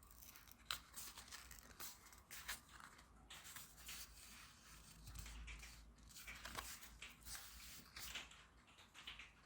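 Faint, intermittent rustling and crinkling of a memory card's plastic-and-cardboard packaging being handled and picked at.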